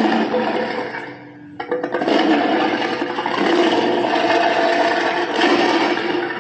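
Fire-dragon sound effect: two long, rushing blasts, a short one at first and then one of about five seconds, over a steady low hum.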